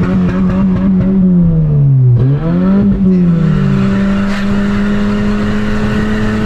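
Honda Civic LXR's naturally aspirated 2.0-litre four-cylinder revving loud through an open exhaust cutout. The pitch holds high, drops away about two seconds in, climbs back and is held steady at high revs, then falls off at the very end.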